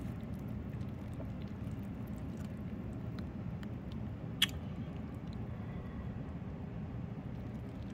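Wooden chopsticks stirring and lifting instant noodles in a paper cup: faint scattered clicks, with one sharp click about four and a half seconds in. A steady low hum runs underneath.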